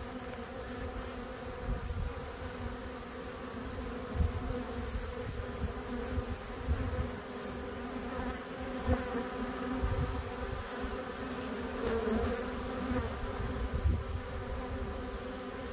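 Honeybees buzzing in a steady hum at a hive entrance as foragers crowd in, with occasional low thumps.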